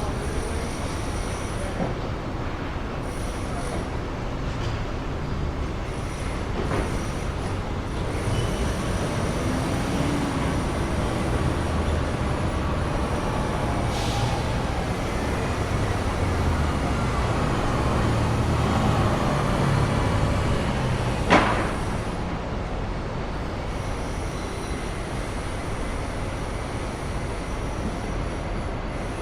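City ambience: a steady low rumble of traffic, with faint high squeals through the middle and a single sharp clank about two-thirds of the way through.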